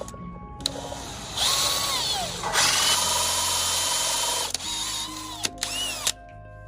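Electronic speaker-test music: steady bass notes and synth tones. From about a second and a half in to past four seconds a loud, harsh, drill-like whirring cuts in, with whining tones that slide down in pitch.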